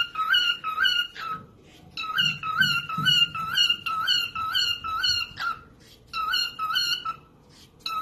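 Pet parrot repeating the same short call over and over, about three calls a second. The calls come in three bouts with brief pauses between them, the middle bout the longest.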